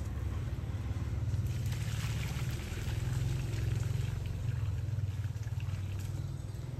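Hot cooking water being poured out of a large steaming pot onto bare earth, splashing and trickling, with a low steady rumble underneath.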